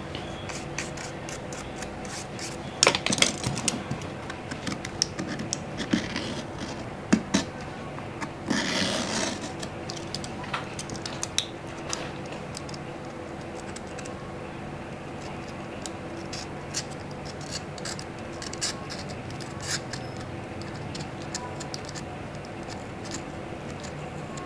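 A small hand tool scraping and picking old screen adhesive out of the grooves of a Samsung Galaxy J7 Pro's frame: scattered scratches and clicks, with a longer scrape about nine seconds in.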